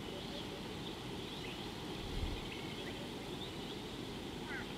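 Outdoor ambience: a steady low rumble of background noise with faint, scattered chirps of birds calling. A single low thump comes about two seconds in.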